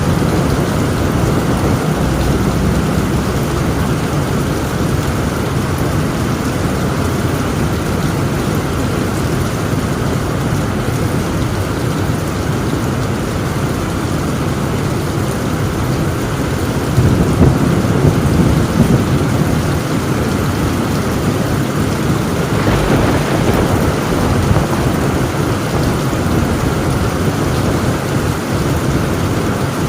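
Heavy rain pounding steadily on a tin roof, with thunder rumbling through it. A louder roll of thunder swells about halfway through, and a brief sharper burst follows a few seconds later.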